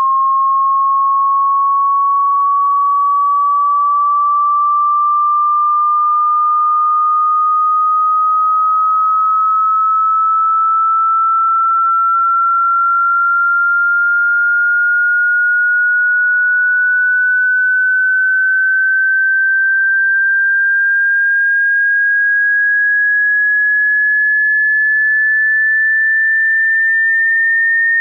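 Hearing-test sine tone: a single pure tone at a steady level, gliding slowly and evenly upward in pitch by a little less than an octave.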